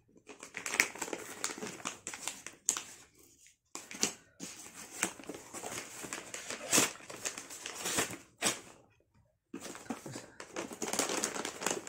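Courier packaging being opened by hand: paper and plastic crinkling and rustling in irregular bursts, with two brief pauses.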